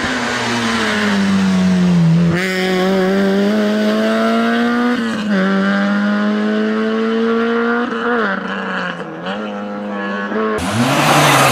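Rally car engine at high revs, its pitch climbing steadily and then dropping sharply at each gear change, a few times over. Near the end, a sudden louder rush of broad noise takes over.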